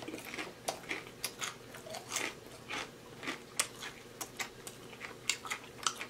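A person chewing food with the mouth closed, close to the microphone: a run of short, irregular wet mouth clicks, several a second.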